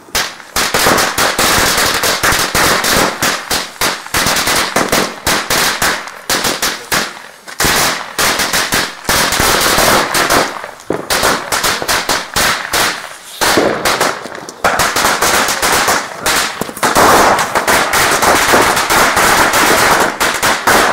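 Firecrackers going off in rapid succession, many sharp bangs a second, with a few brief pauses.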